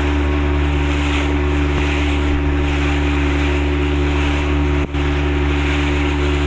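Motorboat engine running steadily under way, with wind and rushing water over it; the sound dips for a moment about five seconds in.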